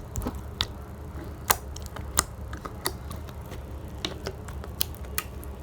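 Homemade glue-and-borax slime being squeezed and worked by hand, giving off irregular sharp clicks and pops, a few every second.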